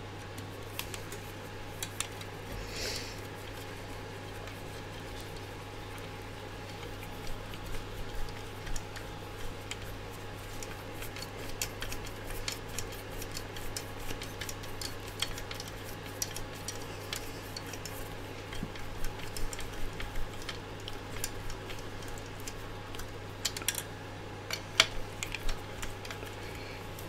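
Small hand screwdriver turning a screw into a 3D-printed plastic part, with scattered light clicks and scrapes of the tool and fingers that come thicker after the first few seconds, over a steady low hum.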